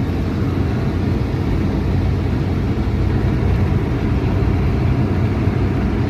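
Steady rumble and rush of a car driving at speed, heard from inside: road and wind noise, even throughout.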